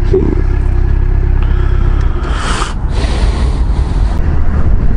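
Steady low engine rumble, with a short hiss about two and a half seconds in.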